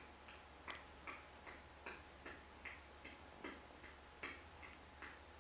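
Faint, regular ticking, about two and a half ticks a second, over an otherwise near-silent room.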